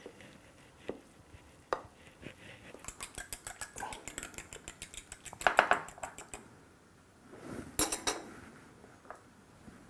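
A fork beating an egg in a small glass bowl: a fast run of sharp metal-on-glass clinks, about seven a second, for a few seconds, then a short cluster of louder clinks. A few single knocks of a spatula on the glass Pyrex dish come first.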